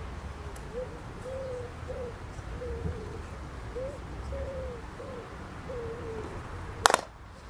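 A dove cooing, a run of short, soft rising-and-falling notes repeated about every half second over a low rumble. A single sharp knock sounds near the end.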